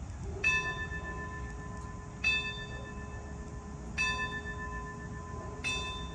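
Church bell tolling: four strikes about one every 1.8 seconds, each ringing on into the next, over a low steady rumble.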